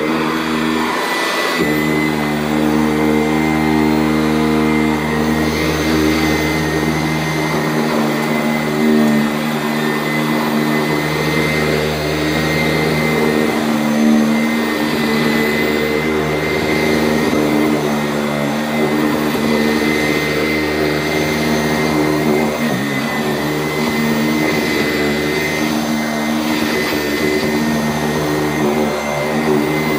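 Sanitaire SC889A commercial upright vacuum cleaner running steadily while vacuuming: a loud, even motor hum over rushing air, with a brief dip in the low end about a second in.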